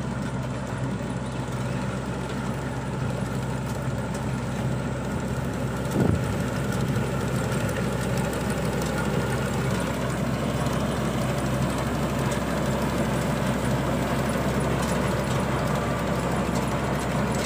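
Tracked combine harvester's diesel engine running steadily while it cuts ripe paddy, with a brief knock about six seconds in.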